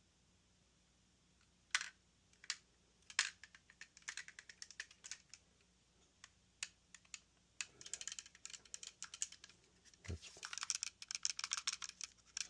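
Close handling of small hard plastic parts and packaging: a few sharp separate clicks, then rapid light clicking and crinkling that grows denser in the last few seconds.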